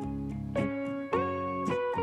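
Instrumental background music, a melody with a new note about every half second.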